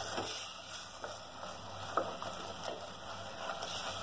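Wooden spatula stirring and scraping onion-tomato masala in a pressure cooker, the masala sizzling steadily as it fries with a little water added. Several short scrapes, the sharpest about halfway through.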